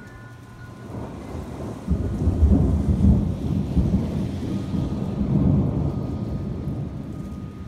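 Thunder: a low rumble builds about a second in, breaks into a loud crash at about two seconds, then rolls on for several seconds and slowly fades.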